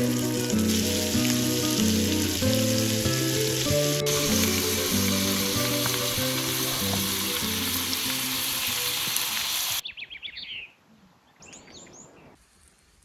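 Venison steaks sizzling in a cast iron pan, a loud steady hiss, over background music with a stepping low melody. About ten seconds in it cuts off suddenly, leaving a few quiet bird chirps.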